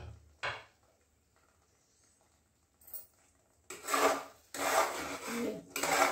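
Metal spatula scraping and stirring thick masala paste in a stainless steel pot, in repeated strokes that begin a little past halfway. Two short knocks of utensil on pot right at the start.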